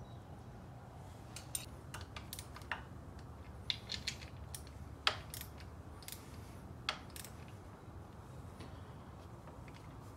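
Small hand tool clicking and tapping on the bolts as the oil-pump block-off plate is bolted onto a Yamaha PW50 engine. The clicks are irregular, bunched in the first seven seconds, with the loudest about five seconds in, over a low steady hum.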